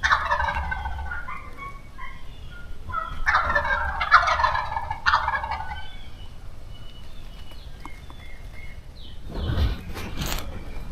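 Wild turkeys gobbling: two rattling gobbles, the first right at the start and the second about three seconds in. A brief, louder noise follows near the end.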